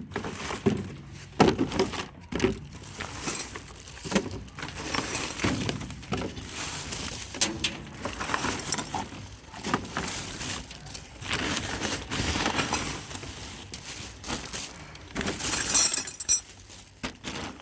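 Scrap being rummaged through in a skip: small hard pieces clattering and clinking against each other in irregular knocks, with a brighter rattle near the end.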